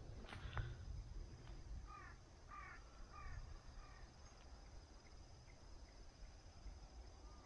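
A crow cawing four times in quick succession, faint, starting about two seconds in.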